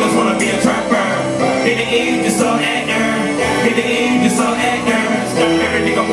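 Loud live music: a man's voice into a microphone over a backing track with a steady bass line, through a club sound system.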